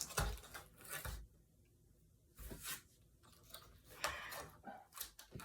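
Toy-car packaging being worked at by hand: a series of short scrapes, rustles and tearing sounds as the stuck box is pried at.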